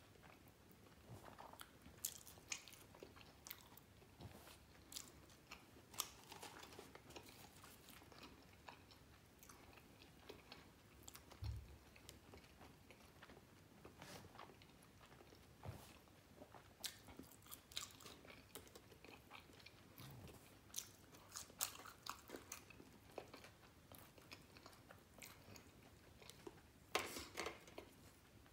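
A person biting and chewing a bacon cheeseburger close to the microphone, with short crackling clicks scattered throughout. There is a low thump about halfway, and a louder burst of crackles near the end.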